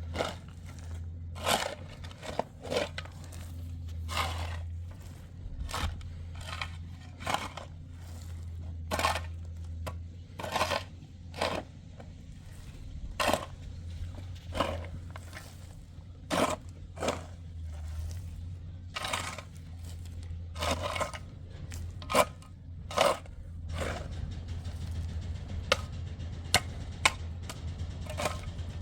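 Repeated short scraping and crunching strokes at an uneven pace of about one a second, over a steady low hum.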